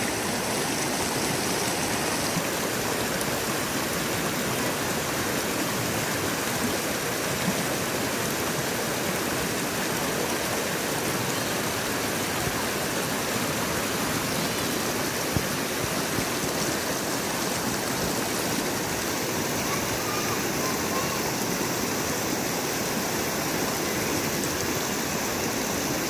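Clear mountain stream rushing over boulders and stones in shallow rapids: a steady, unbroken rush of water.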